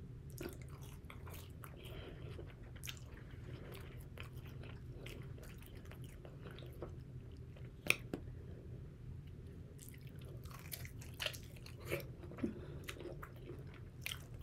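Quiet chewing and biting of crispy fried chicken wings and fries, with short crunching clicks, a sharper one about eight seconds in and a few more near the end.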